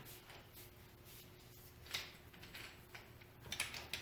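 Mostly quiet, with a few faint clicks and taps from hand tools being handled: one small tick about two seconds in and a short cluster of clicks near the end.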